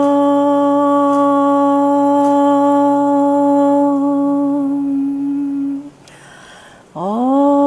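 A voice chanting a long, held "Om" on one steady note, sliding up into the pitch at its start. About six seconds in it stops for a breath, and a new "Om" begins near the end with the same upward slide.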